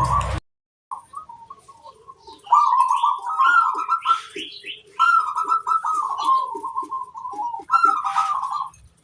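Zebra doves (perkutut) cooing in warbling, trilling phrases, with higher chirps over them. The sound drops out briefly about half a second in, comes back faintly and is loud from about two and a half seconds in.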